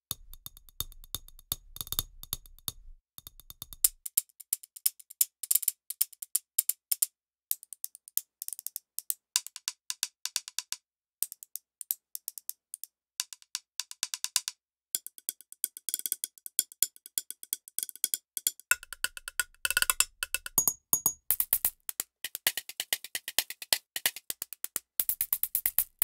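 Very short, dry percussion samples (drumstick clicks, brush hits and chopstick taps) played in quick, irregular runs from a keyboard through a software sampler, with a few brief pauses between runs.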